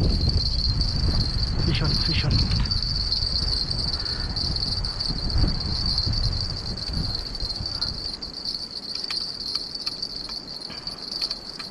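A steady high-pitched drone of insects calling at dusk, over a low rumbling noise that fades away about eight seconds in, with a few light clicks.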